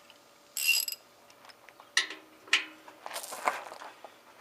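Metal clinks and clatter of tools and bolts while a washing machine tub is unbolted, including one short ringing clink just under a second in and a few sharp knocks later.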